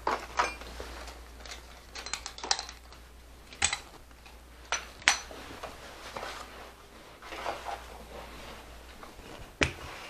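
Scattered metal clicks and clinks of hand tools and door-lever hardware being handled, some in quick runs and a few louder. A faint low hum underneath stops about nine seconds in.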